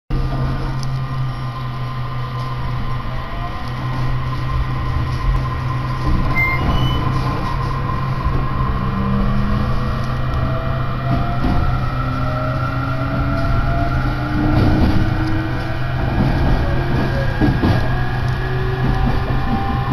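Inside an electric Joban Line train running along the track: a steady low hum under rumbling running noise, with motor tones slowly rising in pitch as the train gathers speed.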